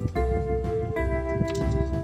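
Background music: sustained synth chords that change about twice a second over a steady low beat.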